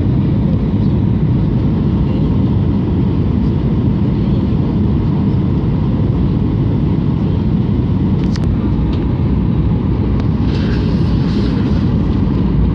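Cabin noise inside a Boeing 737-800 on approach to landing: a loud, steady low rumble of its CFM56 engines and the air rushing past the fuselage. A brief click comes about eight seconds in.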